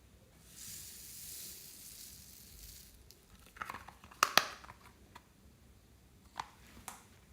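Crunchy bead and floam slime being worked by hand: a soft high hiss for a couple of seconds, then a cluster of sharp crackles and pops about four seconds in, and two more pops near the end.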